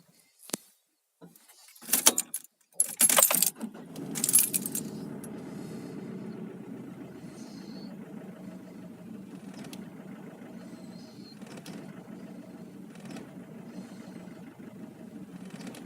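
Nissan Pathfinder R51 2.5 litre four-cylinder turbodiesel switched off, then cranked again: a click, a few loud cranking bursts, and the engine catches about four seconds in. It then idles unevenly with occasional sharp ticks, a cold-start misfire that clears once the engine is warm.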